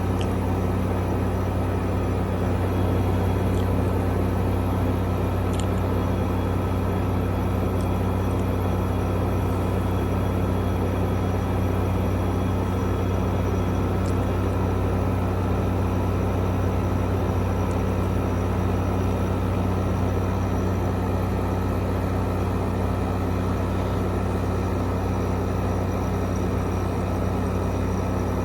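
2016 Frigidaire window air conditioner running steadily: its fan's rush of air over a steady low hum.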